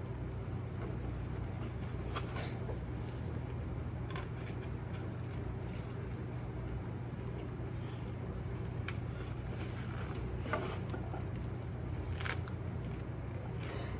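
Steady low engine and road hum inside a moving car, with a few faint, irregular clicks and rustles.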